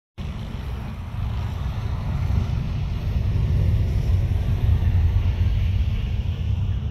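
Steady low rumble of wind buffeting the microphone, with a diesel-hauled passenger train approaching in the distance.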